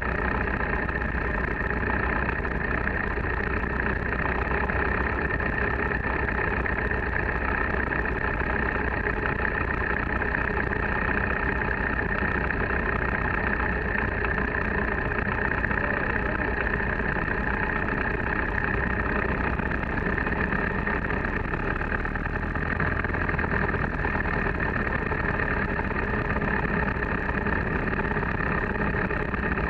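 Luscombe 8-A light aircraft's four-cylinder Continental A-65 engine and propeller running steadily at low taxi power, heard from inside the cabin as a loud, even drone.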